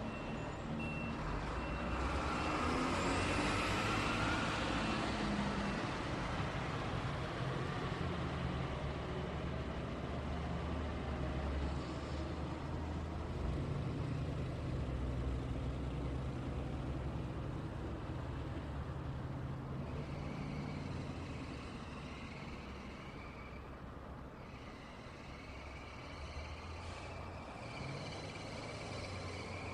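Road traffic: steady engine rumble and tyre noise from passing cars and trucks, swelling as a louder vehicle goes by in the first few seconds. A reversing alarm beeps at an even pace through the first six seconds or so.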